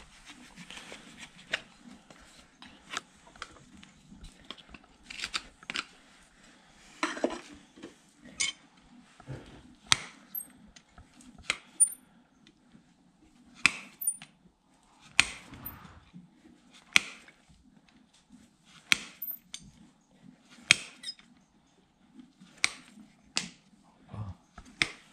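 Hoof knife paring a horse's hoof: a series of short, sharp scraping cuts, one every second or two, louder and more regular in the second half.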